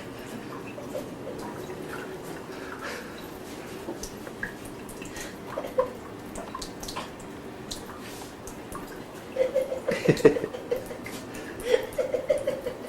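Water dripping in irregular small drips and clicks, with a few brief faint voice-like sounds around ten seconds in and again near the end.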